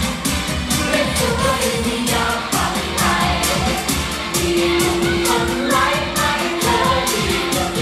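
Thai pop song with singing over a steady dance beat, played live at a stage show, with one long held note through the second half.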